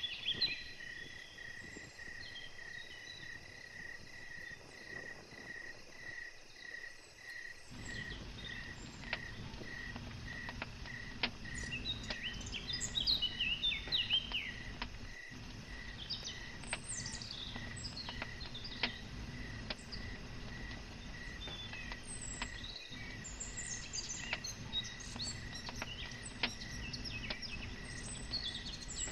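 Outdoor ambience: an insect chirps in a steady rhythm, a little under two chirps a second, with songbirds calling now and then. From about eight seconds in, a wood campfire is added with a low rumble and scattered crackles.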